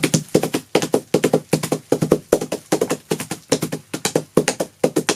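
Coconut shell halves struck together as Foley for horse hooves, beating out a galloping rhythm: quick clops in repeating clusters, about two clusters a second.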